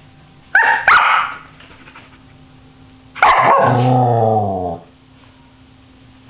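Samoyed giving two quick, short barks, then about three seconds in one longer drawn-out call, about a second and a half long, that falls in pitch.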